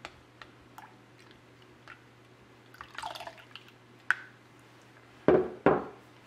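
Almond milk being poured from a glass measuring cup into a glass bowl of Greek yogurt and stirred in with a spatula, with light clinks of the spatula against the glass. Two louder knocks come near the end.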